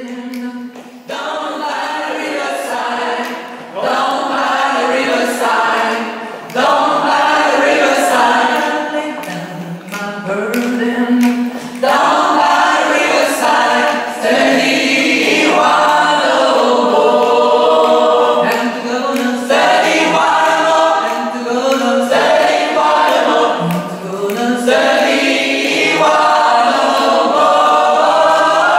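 Mixed gospel choir of women's and men's voices singing together in phrases, unaccompanied.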